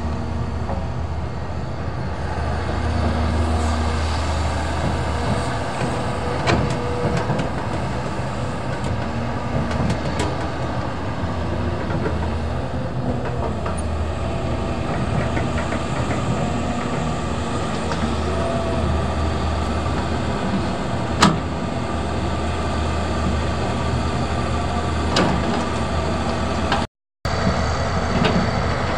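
Caterpillar 320D excavator's six-cylinder diesel engine running steadily under hydraulic load as it digs and swings loads of sand, with occasional knocks and one sharp clank about two-thirds of the way through. The sound cuts out briefly near the end.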